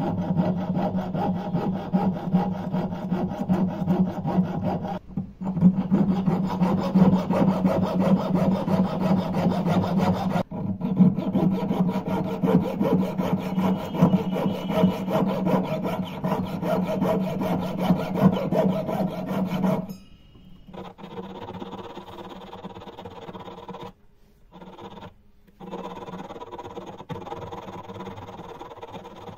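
Jeweller's piercing saw cutting through a brass chain link in quick, steady back-and-forth strokes. About two-thirds of the way through the scraping turns quieter and finer: a needle file working the cut.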